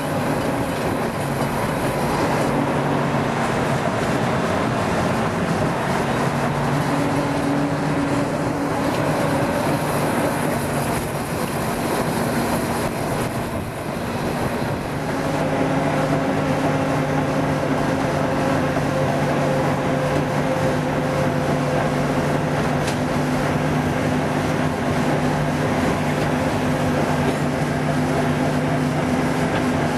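Narrow-gauge train running, heard from on board: a steady rumble of the moving train. A steady low hum joins it about halfway through.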